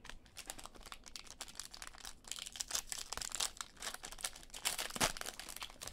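Foil wrapper of a Topps Inception baseball card pack being torn open and crinkled by hand. It crackles irregularly, louder from about two seconds in, with one sharp crackle near the end.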